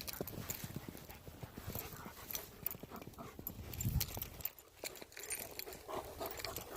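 Footsteps crunching through several inches of fresh snow on boots fitted with ice chains, at a walking pace, with a heavier thump about four seconds in.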